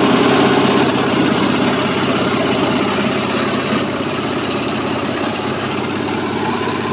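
Small single-cylinder diesel engine running steadily, driving a hammer-mill crusher that is shredding foam scraps fed into its hopper into small crumbs for pillow and mattress filling.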